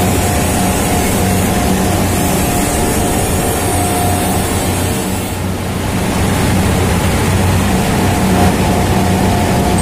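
Steady loud hum of running heavy machinery: a low drone with a higher steady tone over a broad rushing noise, briefly easing about five and a half seconds in.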